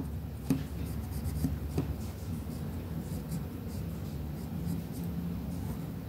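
Coloured pencil shading on paper, a soft steady scratching, with a couple of light taps in the first two seconds.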